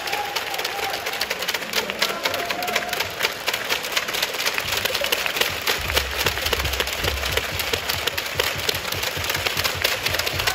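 Basketball arena crowd making a dense, rapid clatter of clapping during a free throw: the home fans are trying to put off the visiting shooter.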